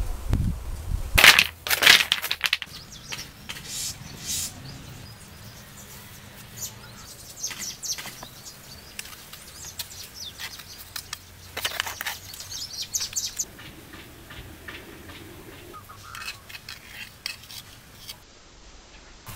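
A trowel scraping and knocking on stones and wet cement mortar in short, irregular strokes, with birds chirping now and then.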